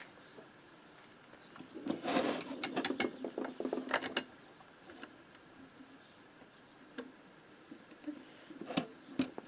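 Small metal clicks and rattling from hand work on a Motobécane AV89 moped engine's piston, as a 13 mm piston-pin circlip is fitted: a quick run of clicks lasting about two seconds, then a few separate sharp clicks near the end.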